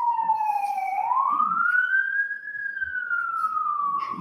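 Emergency-vehicle siren wailing slowly: its pitch falls, rises over about a second and a half, then falls again.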